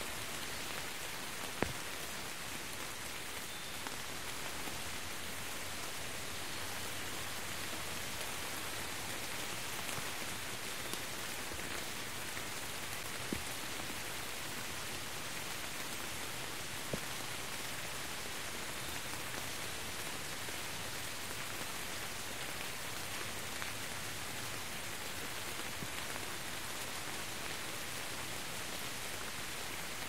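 Steady rain falling and splashing on hard ground, with a few sharper single drop hits, the loudest about two seconds in.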